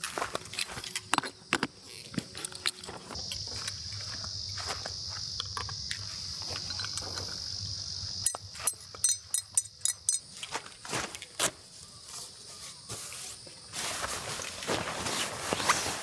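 An insect's steady, high-pitched buzz, strongest for a few seconds in the middle. Scattered clicks and knocks sound throughout, and a rustling hiss rises near the end.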